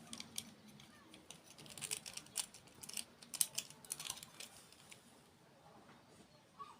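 Close-miked crunchy eating of a dessert: a quick run of sharp, crisp crackling clicks that thins out about four and a half seconds in.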